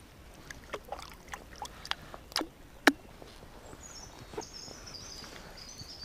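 Water dripping off wet hands into the lake right beside the float tube after a fish is released: scattered light drips and plinks, most of them in the first three seconds.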